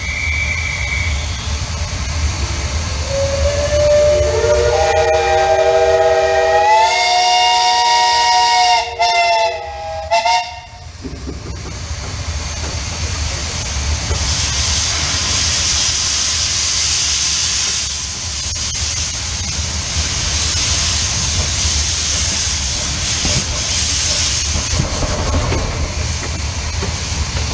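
Steam hissing close by on a miniature steam locomotive running on the rails, with a low rumble underneath. A few seconds in, steam whistles sound a chord of several tones for about seven seconds, then cut off sharply; after that the steady hiss rises and falls.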